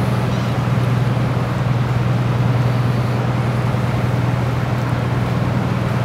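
Motor boat's inboard engine running steadily under way, a low, even drone.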